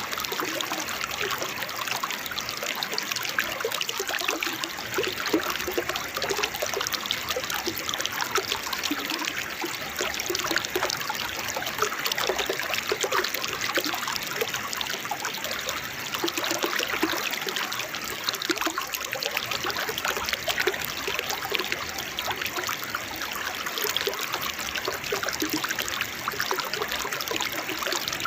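Waterfall water trickling and splashing in a steady, unbroken babble.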